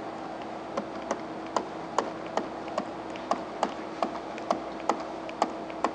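Stylus tapping and clicking on a tablet screen during handwriting: irregular sharp clicks, about two or three a second, over a steady low hum.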